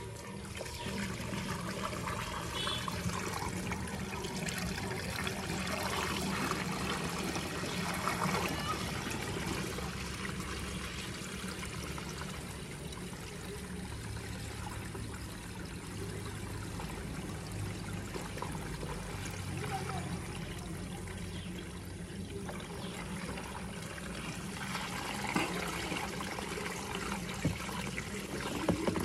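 Diesel poured from a plastic jerrycan through a funnel into the fuel tank of a JCB 3DX backhoe loader: a steady trickling stream, with a few light knocks near the end.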